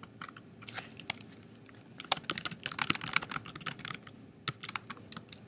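Typing on a computer keyboard: a run of quick key clicks, sparse at first and then rapid through the middle.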